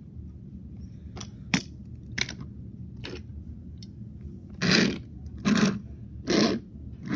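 Die-cast toy trucks handled on a tabletop: a few sharp clicks in the first three seconds, then from about the middle short scraping rustles, roughly one a second, as a hand slides and moves them along the surface.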